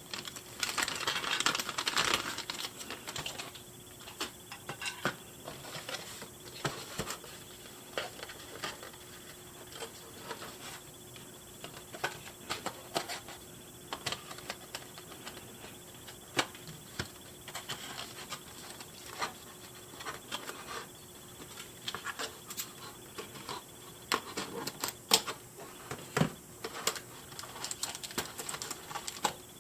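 Hands working on a doll's cardboard and plastic box packaging: a burst of rustling in the first couple of seconds, then scattered light clicks and taps.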